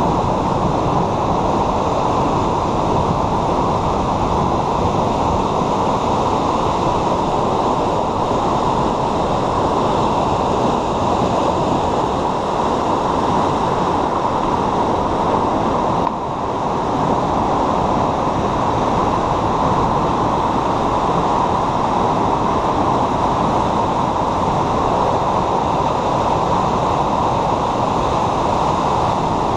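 River in flood after heavy rain, muddy water rushing and churning in white water past a concrete bridge pier: a loud, steady roar.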